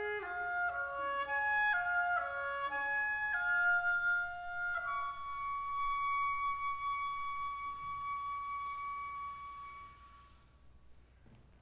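Solo oboe playing a quick run of short notes, then holding one long high note that fades away about ten seconds in.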